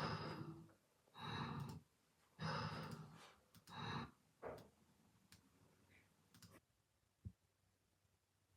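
Person snoring: four rough, breathy snores about a second apart and a weaker one after them. Then it goes quiet, with a few faint clicks and a soft knock about seven seconds in.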